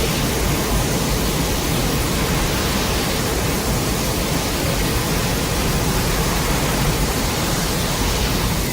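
Steady, loud rushing noise with no clear pitch, spread evenly from deep rumble to high hiss.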